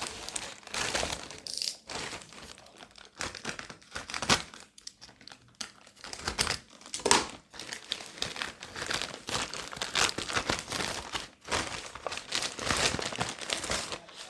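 Product packaging being unwrapped by hand: irregular crinkling, rustling and crackling as the box is opened and the lantern taken out.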